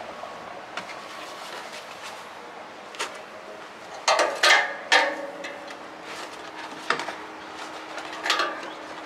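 Handling noises at a zero-turn mower's oil drain hose: a plastic jug and the hose fitting knock and rattle. There is a cluster of loud knocks about halfway through and a few single clicks before and after, over a steady background hiss.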